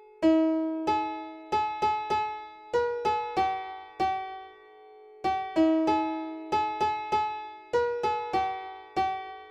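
Piano playing a slow melody of single struck notes, each ringing and fading out. The same phrase repeats about every five seconds, with a short pause between phrases.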